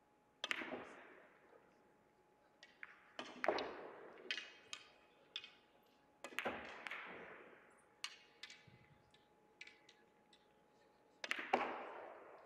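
Sharp clacks of Russian pyramid billiard balls: the cue tip striking and the large balls knocking into one another and the cushions, about a dozen hits with the loudest about half a second in, about six seconds in and near the end, each trailing off with a short ring. A faint steady high hum runs underneath.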